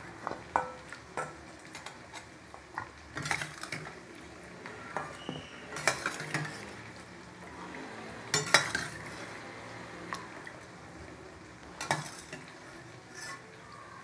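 A spoon stirring an onion-tomato masala sautéing in a kadai, clinking and scraping against the pan about ten times at irregular intervals over a faint sizzle.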